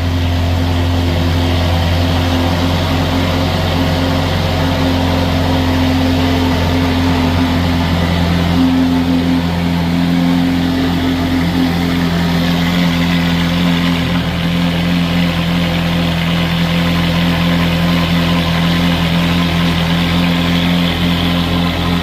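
Ferrari F430 Scuderia's 4.3-litre V8 running through freshly installed headers, idling steadily. The idle pitch steps down about eight or nine seconds in and settles lower.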